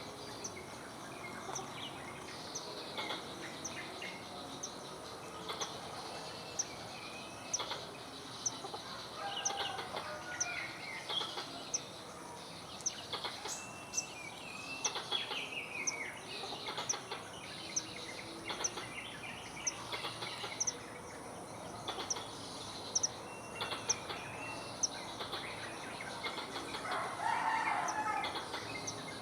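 Forest squirrel calling in the wild: short, sharp, high chirps repeating about once a second, with other scattered animal calls and a louder call near the end, over a steady high hiss.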